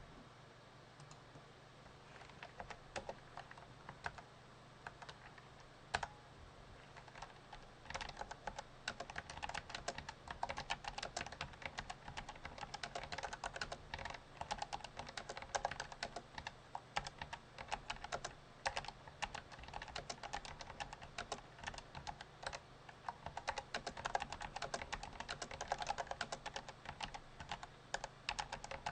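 Perixx Periboard-535 low-profile mechanical keyboard with Kailh Choc v1 Red linear switches being typed on at about 60 words per minute. A few scattered keystrokes come first, then rapid, continuous typing from about eight seconds in.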